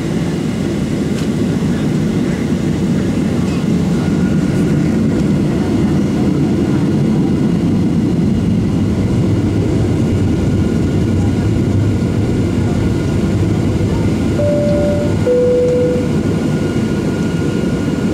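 Steady rumble inside the cabin of a Boeing 737-700, its CFM56-7B engines at taxi power. About fourteen seconds in, a two-note chime sounds, high then low.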